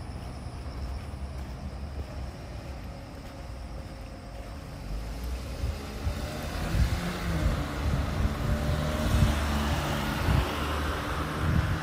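A car driving past on the street, its engine and tyre noise building from about halfway through and loudest near the end.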